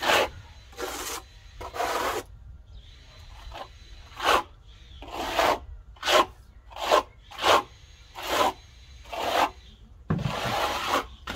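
Plastering trowel scraping render across cement board in short strokes: about a dozen irregularly spaced sweeps, each under a second, with a longer sweep near the end.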